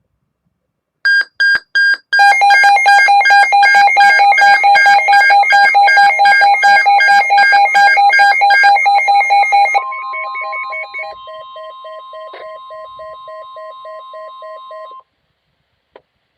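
Emergency alert tones for a flash flood warning: three short beeps, then a rapidly pulsing electronic alarm of several tones for about seven seconds. It changes to a steady single-pitch tone over a quieter pulsing lower beep, which cuts off suddenly near the end.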